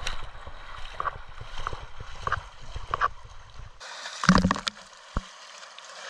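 Water splashing in a rhythm, about one splash every two-thirds of a second, as a person moves through a mountain stream, over a steady rush of water. A little before four seconds in the sound changes abruptly, and a louder splash follows just after.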